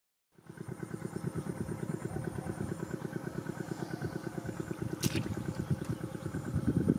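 A small engine running steadily nearby, with an even, rapid chugging of about ten beats a second. A short sharp click sounds about five seconds in.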